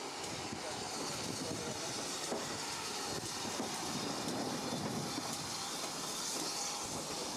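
GWR 57xx-class 0-6-0 pannier tank steam locomotive running slowly past with its coaches, a steady hiss of steam over the rumble of the train, growing a little louder as it draws alongside.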